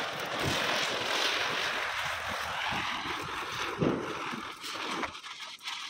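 Diwali ground-spinner fireworks burning on the ground, a steady fizzing hiss of sprayed sparks that cuts off about five seconds in.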